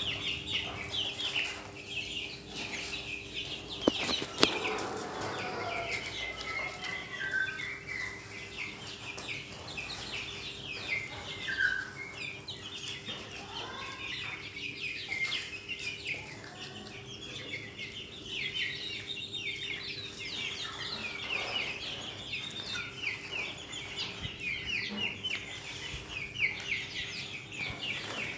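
A flock of young chickens, Australorps among them, peeping constantly with many short high chirps, with a few lower clucks now and then. There are two sharp clicks about four seconds in and a faint steady hum underneath.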